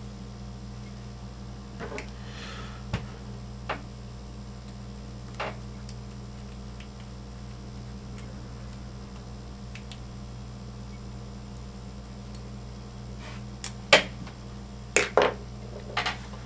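Small metal parts and hand tools clicking and clinking against each other and the tabletop while an RC truck's rear hub is worked on by hand: a few scattered clicks, then a quick cluster of louder clinks near the end, over a steady low hum.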